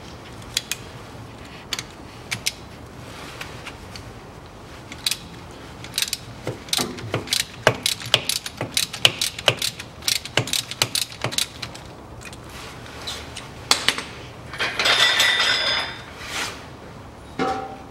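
Ratchet wrench with an 8 mm hex bit clicking in quick runs as the filler plug on a rear differential is unscrewed, with a longer, denser burst about three seconds before the end.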